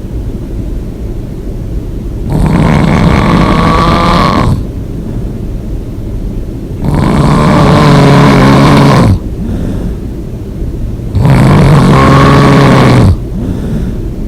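A person snoring loudly: three long, rasping snores about four and a half seconds apart, with softer breathing noise between them.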